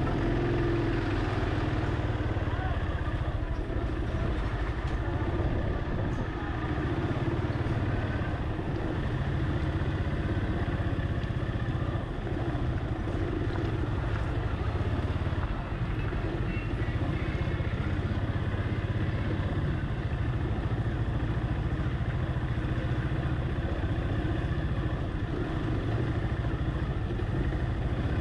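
Vehicle engine running steadily at low speed through a narrow street, with the hum and mixed noise of nearby traffic and street life.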